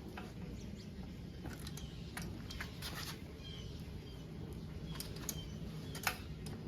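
Sparse clicks and taps of hand-tool work on the motorcycle's exhaust fasteners over a low steady hum, with several short, high chirps scattered through.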